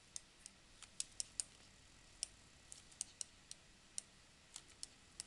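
Stylus tip tapping and clicking on a tablet screen while handwriting: faint, short, sharp clicks at an irregular pace, about three a second.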